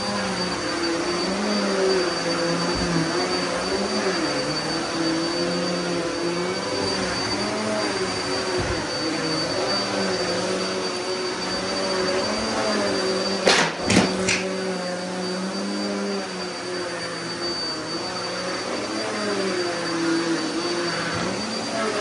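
Upright vacuum cleaner running steadily on carpet, its motor hum wavering slightly in pitch as it is pushed back and forth. About halfway through there are three quick sharp knocks.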